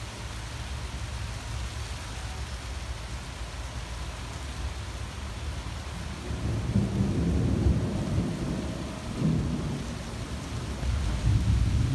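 Steady rain falling through a leafy tree canopy. About halfway through, a low roll of thunder builds and rumbles, then swells again near the end.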